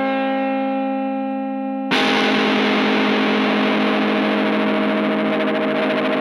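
Electric guitar through distortion and effects: a held chord rings steadily, then about two seconds in a louder, heavily distorted chord crashes in and sustains.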